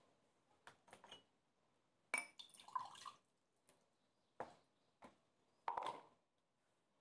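Olive oil poured into an empty ceramic bowl, splashing and dripping, with a few light clicks and taps in between.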